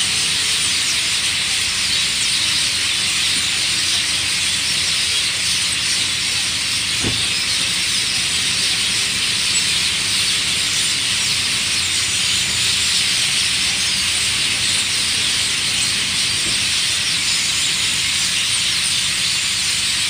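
A large flock of birds chirping all at once in a tree at dusk, so many calls overlapping that they merge into a steady, high, hissing wall of chatter. A brief low thump sounds about seven seconds in.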